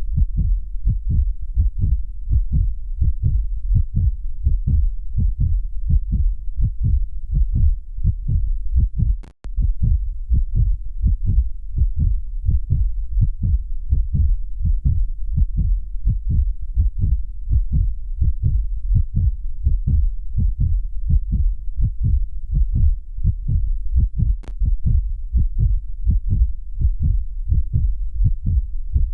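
Human heartbeat, a steady rhythm of low, muffled thumps. It cuts out for an instant with a click about nine seconds in.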